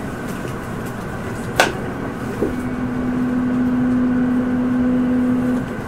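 Tokyo Metro Ginza Line 1000 series subway car running between stations, heard from inside the car: steady running noise with a sharp click about a second and a half in, then a steady low hum for about three seconds.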